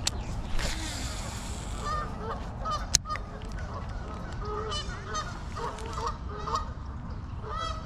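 Geese honking, a string of short repeated calls starting about two seconds in, with one sharp click about three seconds in.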